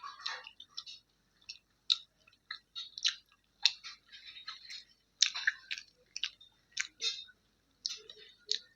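Close-miked chewing of roti with kadhi pakoda: irregular wet mouth clicks and smacks, a few each second.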